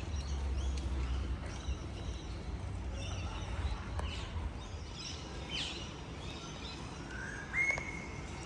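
Birds chirping and calling in short notes, with a louder whistled note near the end, over a steady low rumble of street noise.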